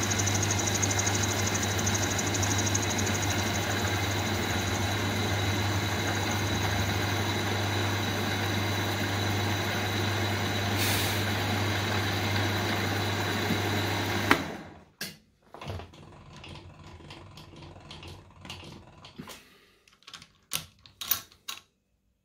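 Milling machine running with a steady hum as an end mill cuts small brass parts held in a vise. The machine stops abruptly about fourteen seconds in. Scattered light clicks and taps follow as the vise and parts are handled.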